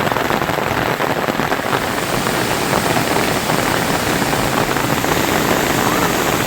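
Rain falling steadily, a dense even patter with no let-up.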